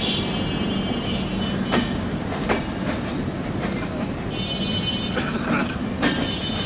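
LHB passenger coaches of a train rolling past, wheels clicking over rail joints now and then, with spells of high-pitched wheel squeal near the start, about two-thirds of the way in and at the end. A steady low hum runs underneath.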